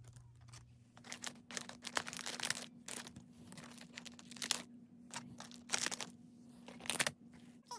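Plastic packaging crinkling and rustling in irregular bursts as it is handled, with a faint steady hum that comes in about a second in.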